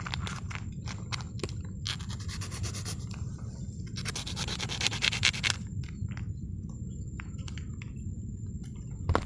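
Scraping and rustling handling sounds with scattered clicks, in two longer stretches about two and four seconds in, over a steady low wind rumble. A thin, steady high tone runs through it.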